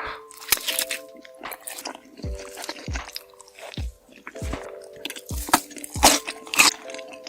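Loud crunchy bites and chewing of food close to the microphone, the sharpest crunches a little past the middle, over background music with a steady thumping beat.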